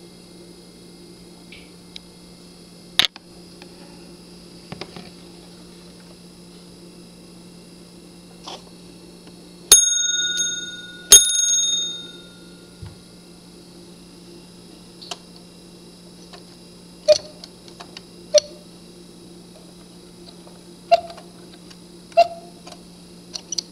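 Bell of an old West German cuckoo clock struck twice by hand, each strike ringing out for a second or two, with light metallic clicks from the movement's levers. Later come two pairs of short, weak notes from the cuckoo's bellows pipes, worked by hand through their wires because the clock is missing parts and no longer runs.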